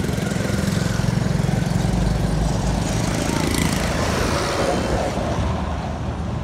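A small vehicle engine running steadily on the move, with wind rushing over the microphone and road traffic passing.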